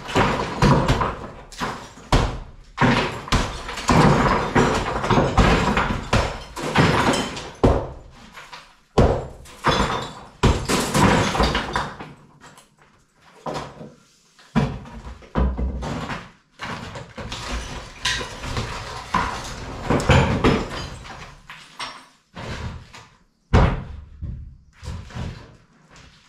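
Hand demolition of an old stone-and-plaster farmhouse wall: repeated knocks and thuds as the wall is struck and chunks of plaster and masonry fall. The blows come thick and loud for the first half and thin out to scattered knocks after about twelve seconds.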